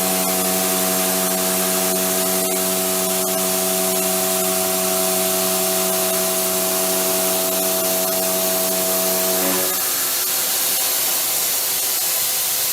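SDV-HLA milling machine heavy milling: a steady pitched tone from the cutting, over a constant loud hiss. The tone stops abruptly about ten seconds in, leaving the hiss.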